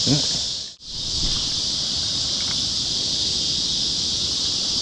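Steady evening chorus of insects, a continuous high-pitched buzz, over a low outdoor rumble. The sound cuts out completely for a moment just under a second in, then resumes unchanged.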